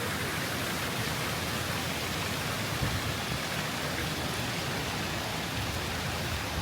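Park fountain water splashing and falling in a steady rush.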